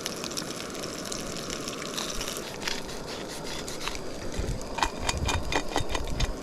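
Fish pieces frying in hot oil in a pan: a steady sizzle with scattered pops and crackles, which come more often in the second half.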